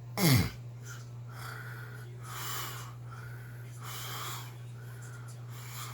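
A sleeping man snoring: one loud snort near the start that drops sharply in pitch, then wheezy breaths in and out about every second and a half. A steady low hum runs underneath.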